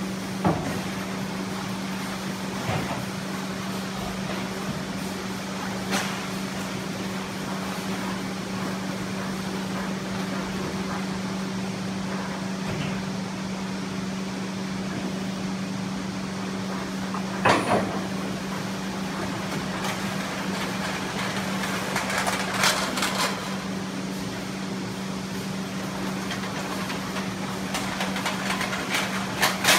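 Steady mechanical hum from the pallet inverter, broken by occasional metal knocks and clanks as its clamp plates release the load and the top plate rises. The loudest clank comes a little past halfway, and a cluster of clattering comes near the end.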